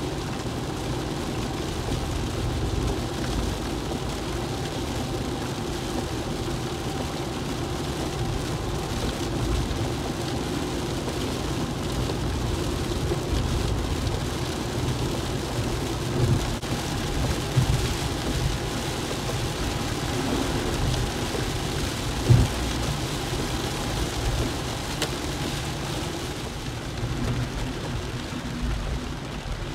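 Steady road noise heard from inside a car driving in the rain: tyres on wet road and rain on the car over the running engine, with a few short thumps about two-thirds of the way through.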